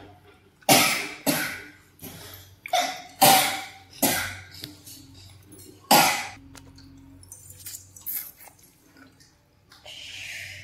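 A man eating chicken fry with his hand, making a series of short, sharp breathy mouth and throat noises, most of them in the first four seconds and another about six seconds in.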